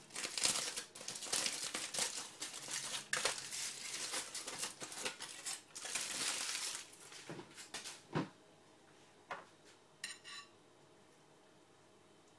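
Aluminium foil crinkling as it is unwrapped from a baked sweet potato, for about eight seconds. A few short, light knocks follow, then it goes quiet.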